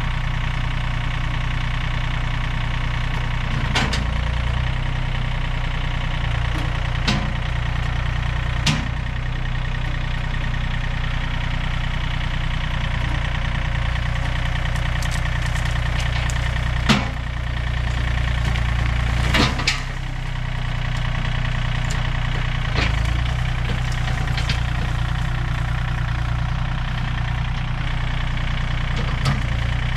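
A John Deere compact tractor's three-cylinder diesel engine runs steadily while the loader works to pull small trees out with a chain on the bucket hooks. Several sharp knocks or snaps stand out over it, the loudest about two-thirds of the way through.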